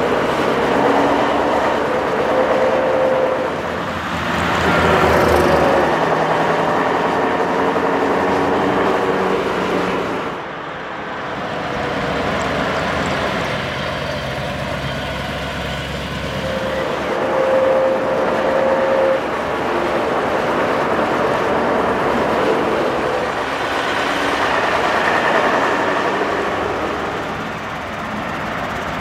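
Mercedes-Benz 1633 S truck's diesel engine running as the tractor unit drives by, its pitch rising several times as it accelerates.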